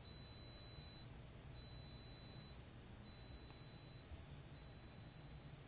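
A 4 kHz pure test tone for an audiogram hearing-threshold test, played as four beeps of about a second each with short gaps, each beep a step quieter than the last.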